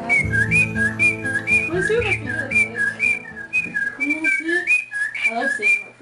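Male cockatiel singing his courtship song to the female, a repeated whistle of two short notes, a higher one then a lower one, about twice a second.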